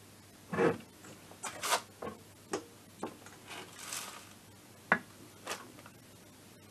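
A string of separate metallic clicks and clatters from a torque wrench and socket on the cylinder head nuts of an MBK Spirit's Minarelli two-stroke engine, with one sharp click about five seconds in. The wrench is set to 10 Nm, a torque the mechanic finds has barely tightened the nuts.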